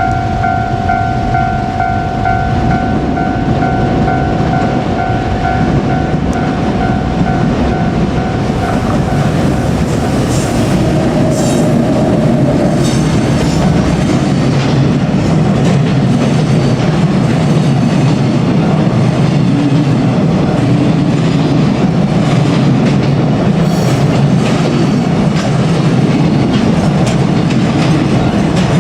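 Freight train hauled by a JR Freight EF510 electric locomotive passing at a level crossing: a steady heavy rumble with clickety-clack of wagon wheels over the rail joints. For about the first eight seconds the crossing's pulsing warning bell rings over it, then stops.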